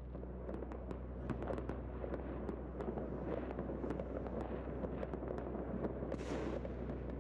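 Fireworks and firecrackers going off all over a city: a dense, continuous crackle of many sharp pops over a low steady hum, with a brief hiss about six seconds in.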